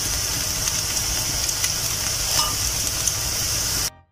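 Batter-coated oyster mushroom strips deep-frying in hot oil, fried golden and crisp, with a steady sizzle. It cuts off suddenly near the end.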